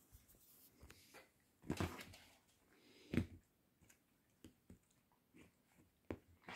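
Cavalier King Charles spaniel puppies moving about close by: two short, louder sounds about two and three seconds in, then a few faint clicks and taps.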